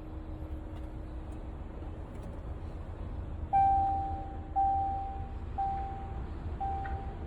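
A single-pitched electronic warning chime sounds four times, about once a second, starting about halfway through, each note ringing briefly, over a steady low rumble.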